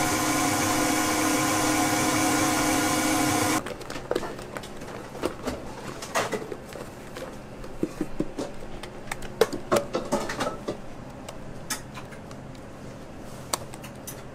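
Stand mixer motor whirring steadily as its wire whisk beats frosting in a steel bowl, cutting off abruptly about three and a half seconds in. Then scattered scrapes and clicks of a spatula against the steel bowl.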